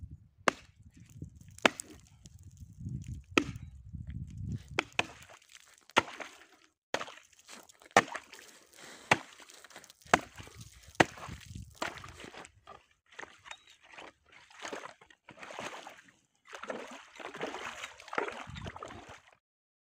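An axe chopping through lake ice: a run of sharp, irregular blows about one a second, with ice chips skittering. In the last several seconds the blade has broken through, and it sloshes and scrapes in the slushy water of the new hole.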